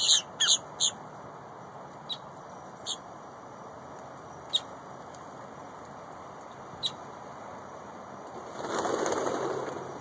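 Grackles giving short, sharp calls, a quick run of them at the start and then single ones every second or two. About 8.5 seconds in, the flock takes off with a burst of wingbeats lasting about a second and a half.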